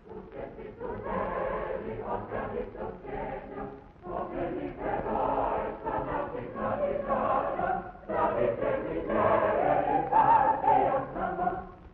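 A choir singing on an old film soundtrack with a narrow, muffled sound, in three phrases with short breaks between them, the last phrase the loudest.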